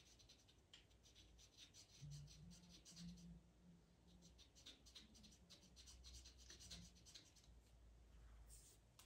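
Faint scratching of a pastel pencil worked in many quick short strokes over Pastelmat paper, with a faint low hum now and then.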